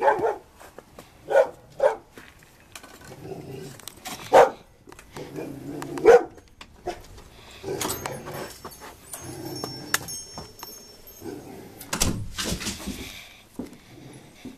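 A large dog barking, a few sharp single barks spread over the first six seconds, then quieter noises with a few clicks.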